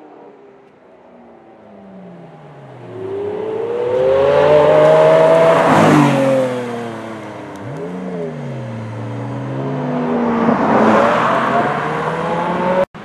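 Car engines accelerating past one after another, each engine note rising and then falling in pitch as the car goes by. The loudest pass comes about six seconds in, followed by a short rev and then a second pass near the end.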